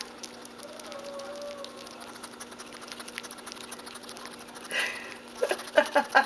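Hedgehog chewing and smacking on wet tuna: a steady run of small, quick clicks. Near the end comes the loudest sound, a rapid string of short voiced 'ha-ha' pulses at about five a second.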